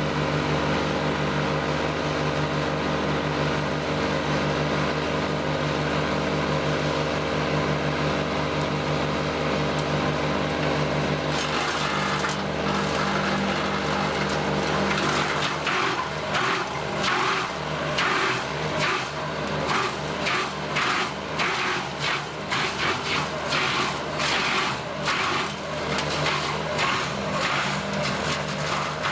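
Tractor-mounted Jansen BX-62RS wood chipper running steadily off the tractor. From about halfway in, a conifer tree is fed in and its branches are chipped in a rapid, uneven run of cracks and snaps over the machine's drone.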